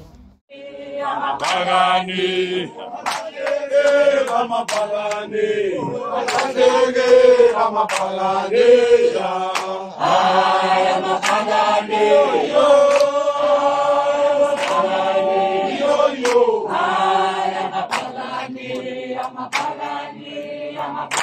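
A group of voices singing together in a chant-like chorus, with sustained, gliding notes. The singing starts about half a second in, and scattered sharp clicks sound through it.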